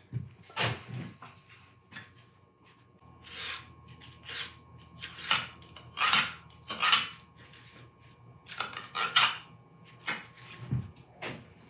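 Foamcore sheets being handled and set down on a workbench: a string of irregular short scrapes, rubs and light knocks.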